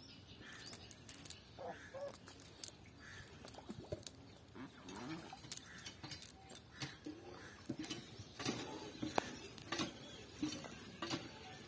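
Wet nylon cast net being handled on muddy ground as fish are picked from the mesh: its weighted rim clinks and the mesh rustles in irregular short clicks and ticks.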